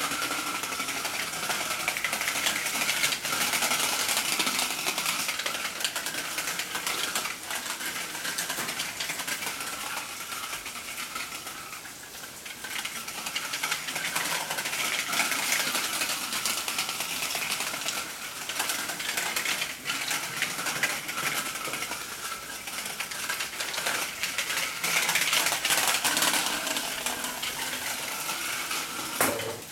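Child's small bicycle with training wheels rattling and clattering as it rolls over brick paving, louder and softer as it goes, quieting suddenly near the end.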